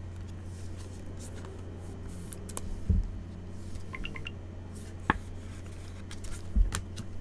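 Thin plastic card sleeve crinkling and rustling in gloved hands as a trading card is slid into it, with scattered light clicks and two dull knocks, one about three seconds in and one near the end, over a steady low hum.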